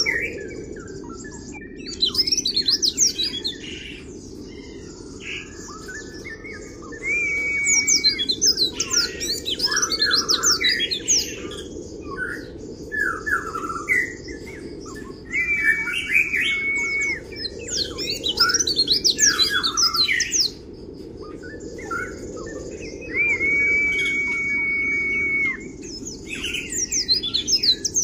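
Caged white-eye (pleci) singing in 'kriwik' style: repeated bursts of rapid, high, twittering notes, broken three times by a long level whistle held a second or two.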